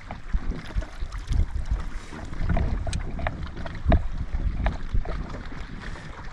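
Wind rumbling on the microphone aboard a small fishing boat, with scattered knocks and clicks of handling; the loudest thump comes about four seconds in.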